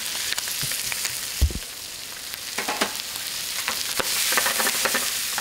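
Chicken wings and chopped vegetables sizzling in coconut oil in a frying pan, with a metal utensil clicking and scraping against the pan as they are stirred. There is a dull knock about a second and a half in.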